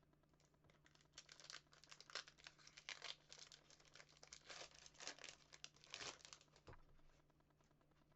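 Quiet crinkling and rustling of a foil hockey-card pack wrapper and cards being handled, in irregular bursts that die away near the end.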